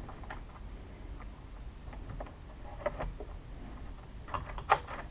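Light metallic clicks and taps of a mechanical push-button code lock's inside lever assembly being seated against the door, with a quicker, louder run of clicks near the end.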